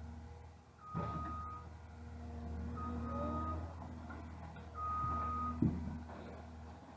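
John Deere 1210E forwarder's diesel engine running low and steady while its reversing alarm beeps three times, each beep a single held tone about two seconds apart. A short rising whine comes in the middle, and a sharp thump about five and a half seconds in is the loudest sound.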